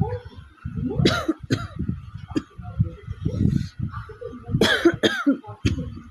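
A person coughing over and over from a real cough, a string of separate coughs, with the loudest about a second in and again near the end.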